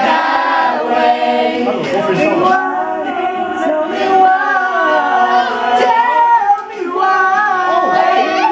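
A small group of young men singing together, drawing out long held notes.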